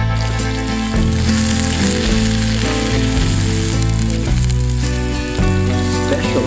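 Food sizzling in a hot pan over steady background music; the sizzle starts suddenly and thins out after about four seconds.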